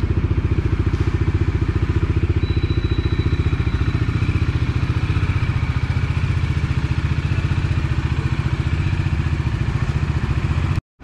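Bajaj Dominar 400's single-cylinder engine idling steadily after a cold start, with an even, rapid firing pulse. It is warming up so the oil that settled in the sump while it stood unused reaches the top of the engine.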